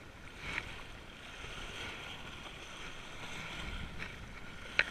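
Breeze buffeting the microphone and small waves washing against a rocky shoreline. A short, sharp tap near the end.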